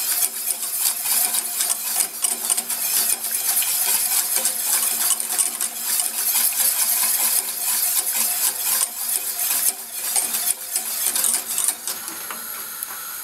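Wire whisk beating béchamel sauce in a stainless-steel saucepan, its wires scraping and clicking rapidly against the pan as the sauce thickens. Near the end the whisking stops and a steady hiss remains.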